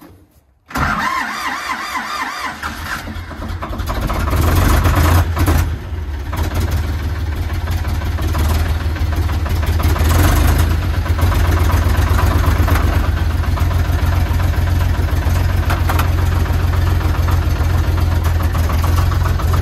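Zetor 4718 tractor's diesel engine cold-started at about −5 °C after standing a week, preheated with a flame glow plug: the starter cranks suddenly, the engine catches within a few seconds and then runs on at a steady idle.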